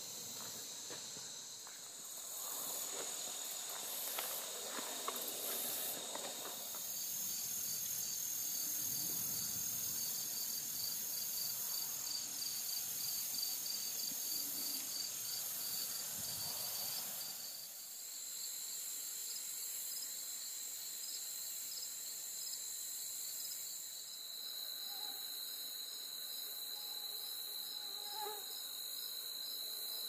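Insects trilling steadily in a high-pitched summer chorus, one of them pulsing rapidly for about ten seconds in the middle. Footsteps rustle and crunch through the first half.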